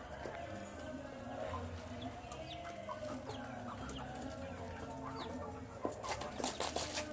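Baby chicks peeping, many short high chirps, while they feed, with a quick run of sharp pecking taps near the end.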